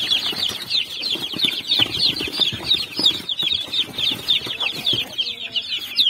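A group of young chicks peeping constantly, many short downward-sliding chirps overlapping, with soft scuffling underneath.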